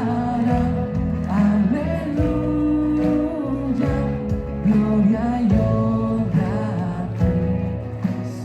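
Live Christian worship band playing a song with singing, backed by piano, electric and acoustic guitars, bass guitar and a drum kit keeping a steady beat.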